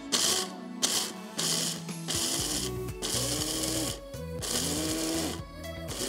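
Small electric food processor grinding whole almonds into coarse almond meal. It is pulsed in short bursts, then run in longer spells of about a second each, and the motor's whine rises and falls with each start and stop.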